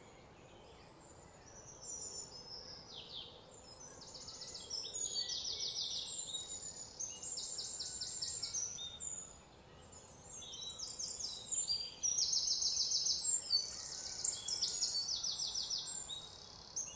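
Wild birds chirping in rapid, high-pitched trills, many short calls overlapping, starting about four seconds in and louder in the second half.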